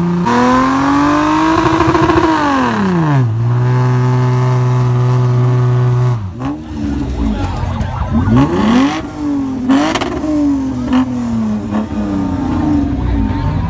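A car engine being revved. The revs climb and fall back, then hold a steady lower note for about three seconds before cutting off sharply about six seconds in. After that comes a run of quick throttle blips that rise and drop again and again.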